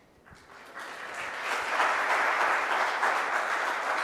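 Audience applauding. It swells from quiet about a second in and holds steady.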